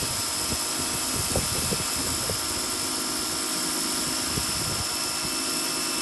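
Electric pressure washer running steadily, spraying water through a turbo nozzle onto concrete: a steady high motor-and-pump whine over the hiss of the spray.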